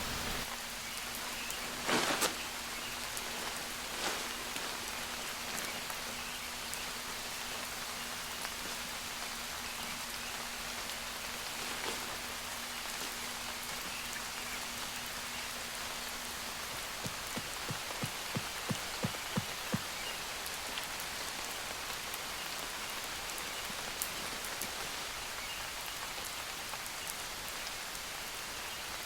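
Steady rain falling in woodland, an even pattering hiss. A few single knocks come near the start, a quick run of light taps about two thirds through, and a faint steady hum stops about halfway.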